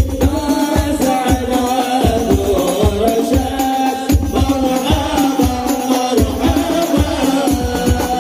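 Group of men chanting maulid sholawat in unison through microphones and a loudspeaker system, to a steady beat of hand-struck rebana frame drums.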